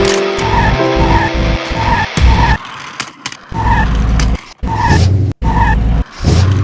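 Race car sound effects, engine and tyre skidding, spliced together in chunks that cut off abruptly, over background music. A melody plays for the first couple of seconds, and short beeps repeat about every half second through most of it.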